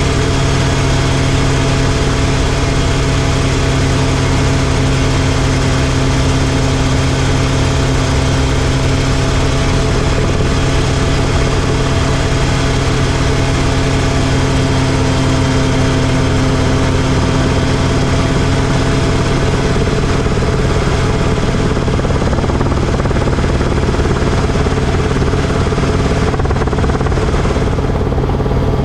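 Rotorway kit helicopter in level flight, its piston engine and rotors running at a steady drone with a strong low hum.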